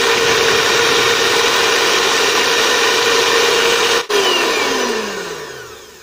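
Electric hand mixer whirring steadily as its beaters whisk eggs, oil and powdered sugar in a plastic bowl. About four seconds in it is switched off and the motor winds down, its pitch falling as it fades away.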